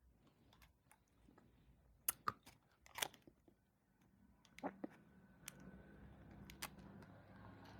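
A person chewing and biting a mango-flavoured bonbon candy close to the microphone, with scattered sharp crunches and clicks, the loudest about two to three seconds in. A faint low hum comes in about halfway through.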